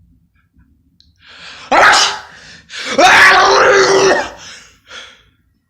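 A man's exaggerated, theatrical sneezing: breathy gasps build up to a sudden loud sneeze, then a second, longer drawn-out sneeze with his voice held in it, trailing off in small breaths.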